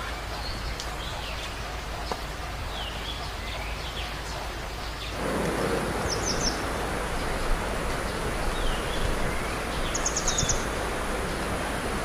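Birds calling repeatedly: short high trills and quick swooping calls every couple of seconds. About five seconds in, the steady rush of a rocky mountain stream's rapids comes in and continues under the calls.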